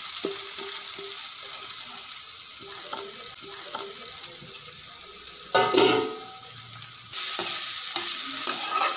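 A metal spoon stirring and scraping flattened rice (aval/poha) around a steel kadai over a steady frying sizzle, with short scrapes and knocks against the pan. The stirring is louder for a moment about five and a half seconds in.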